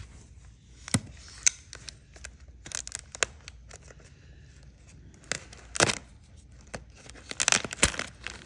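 Clear plastic air-column packaging crinkling and crackling as it is handled and slit open with a folding knife, with scattered sharp snaps of the film.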